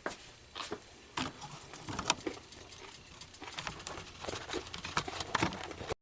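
Irregular light clicks, taps and knocks of objects being handled, with the loudest knock about two seconds in and a cluster of taps near the end.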